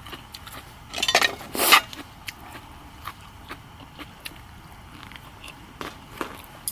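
Close-up eating sounds: crunchy bites and chewing with many small clicks, the loudest crunch about a second in.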